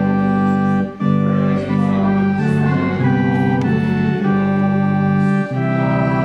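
Organ playing held chords that change every second or so.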